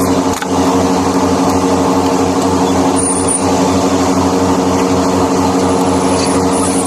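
A motor running steadily at a constant pitch, with a regular low throb.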